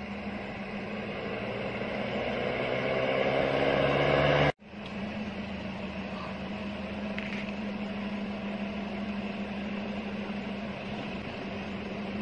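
A minivan's engine and tyres approaching, rising in pitch and loudness, then cut off abruptly about four and a half seconds in. A steady engine hum follows.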